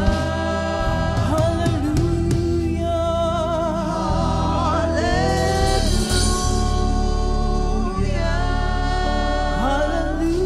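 Gospel worship music: a singer holding long, wavering notes over a steady bass and keyboard accompaniment.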